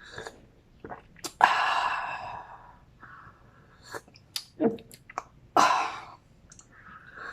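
A person breathing out hard twice through the mouth, two loud breathy exhales that fade away, with small mouth and lip clicks between, while drinking a hot ginger and calamansi herbal drink.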